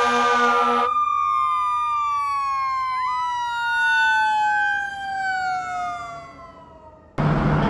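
Emergency-vehicle siren wailing, its pitch sliding slowly down, then rising and falling again, and fading away. Near the end it cuts abruptly to road noise with an engine running.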